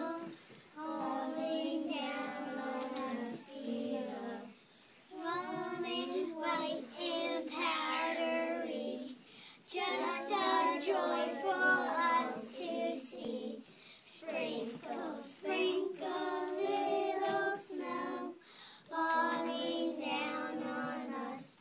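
A small group of young children singing a song together, in phrases of a few seconds with short breaks between them.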